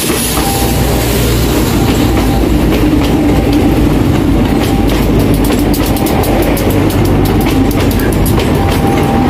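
Local passenger train's carriages passing close by: a steady rolling rumble with quick wheel clicks over the rail joints, growing denser about halfway through.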